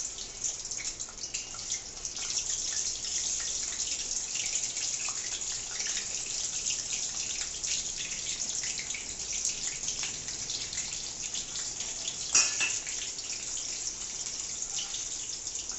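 Boiled potatoes frying in hot oil: a steady crackling sizzle, with one sharp knock about twelve seconds in.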